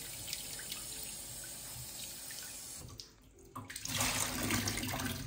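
Kitchen tap running onto raw salmon fillets on a plate in a steel sink as they are rinsed by hand, water splashing. The sound dips briefly about three seconds in, then comes back louder.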